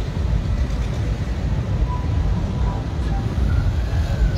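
Steady low rumble of slow-moving road traffic: car, van and motorcycle engines running close by, with a few faint brief tones over it.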